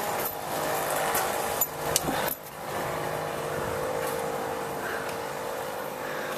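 Front door being unlatched and opened: a few sharp clicks and knocks of the knob and latch about two seconds in, over a steady background hum.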